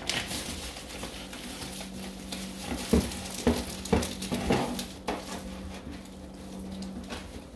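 Plastic packaging and bubble wrap crinkling and rustling as hands dig through a cardboard box, with a few light knocks of items bumping together about three to four and a half seconds in.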